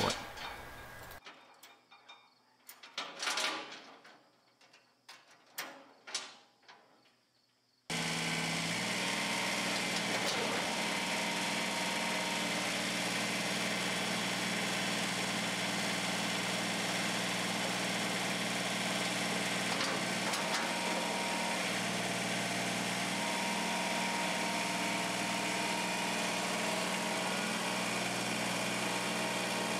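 Kubota compact tractor's diesel engine running at a steady speed while its front loader lifts the blade. It cuts in abruptly about eight seconds in, after a few faint knocks.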